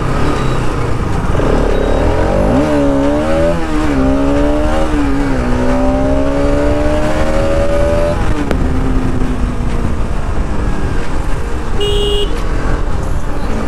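Bajaj Pulsar RS 200's single-cylinder engine running smoothly under way over steady wind and road noise, its pitch wavering and then rising steadily as the bike accelerates between about two and eight seconds in. A short beep comes near the end.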